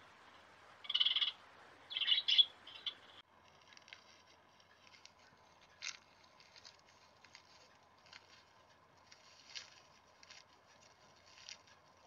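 Rainbow lorikeet calling: a shrill screech about a second in, then a louder cluster of shrill calls around two seconds. The calls stop abruptly at about three seconds, leaving only faint scattered clicks over a faint steady hum.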